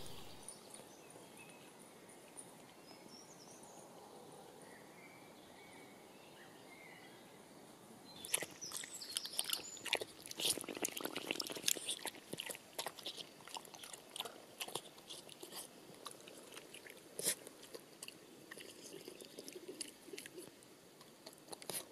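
Small dog crunching and chewing cucumber chunks from a bowl of water: an irregular run of wet crunches and clicks that starts about eight seconds in, after several seconds of faint quiet.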